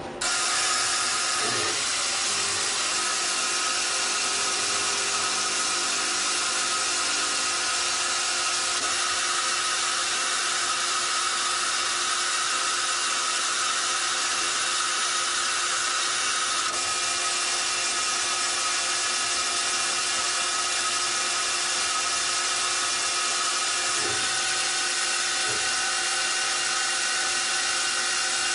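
Citizen Cincom L12 VII Swiss-type CNC lathe running while it machines a brass part: a steady hiss with several constant whining tones. A few faint knocks sound about a second and a half in and near the end.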